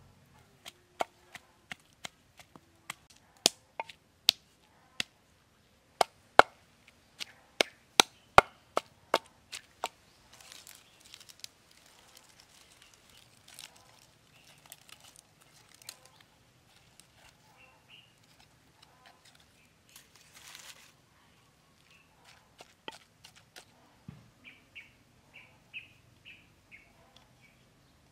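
Sharp, irregular knocks of wood on wood, one or two a second for the first ten seconds, with the loudest ones in the middle. Then a soft crackling rustle as a charred leaf wrapping is opened. A row of short high chirps comes near the end.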